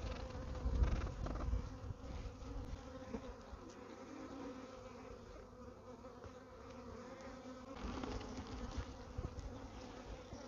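Honeybees humming steadily on and around the frames of an opened mating nuc during an inspection, with a louder low rumble in the first couple of seconds.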